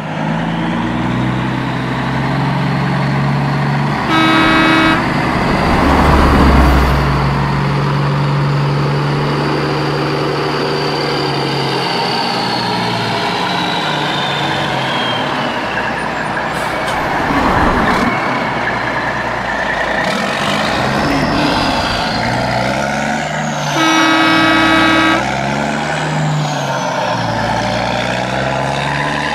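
Heavy truck engine running steadily, with two horn blasts, each a little over a second long, about four seconds in and again near twenty-four seconds.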